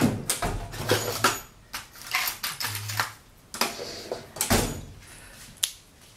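Handling noise: a series of sharp knocks and clicks with rustling between them as tools such as a triangle and pencil are gathered and set down at a workbench.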